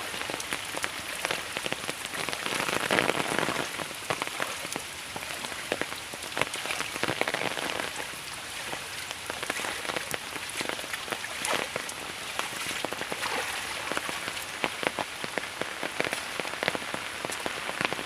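Rain falling steadily, with many sharp drop hits close by.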